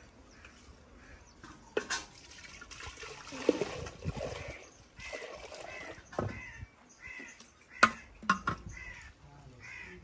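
Liquid poured from a steel bowl into a clay pot, splashing and trickling, with a few sharp clinks of steel vessels, the loudest a little before the end. Crows caw several times in the background through the second half.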